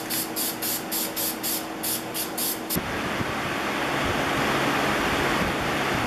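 Aerosol spray lacquer misting in short rapid bursts, about four a second. Nearly three seconds in it cuts to a box fan running with a steady rush of air, drying the wet lacquer.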